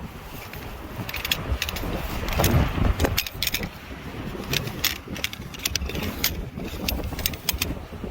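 Strong gusting wind buffeting the microphone, swelling about two and a half seconds in, with a scatter of sharp clicks and light rattles throughout.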